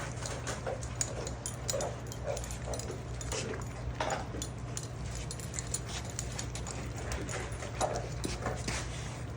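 Six-week-old puppies eating dog food: quick clicks and crunches of chewing and lapping, with short whimpers and squeaks scattered between. A steady low hum runs underneath.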